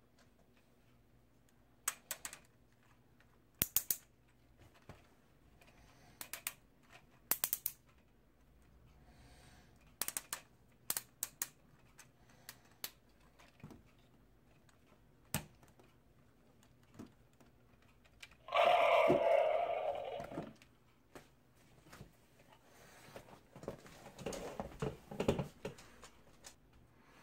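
Hard plastic clicks and taps at irregular intervals as a Voltron Legendary Black Lion action figure is handled and posed, its parts knocking and joints clicking. About two-thirds of the way through, a louder, denser sound lasts about two seconds, followed by a softer cluster of handling noises.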